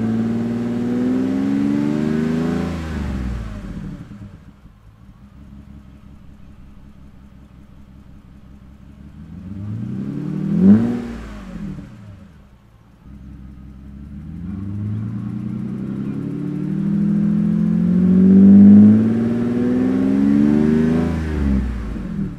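Mercedes-Benz W140 S600's M120 V12 running through an Eisenmann race exhaust, revved while standing. A rev dies back to a low idle in the first few seconds. A quick sharp blip comes about ten seconds in, then a long climbing rev is held near the top and let fall just before the end.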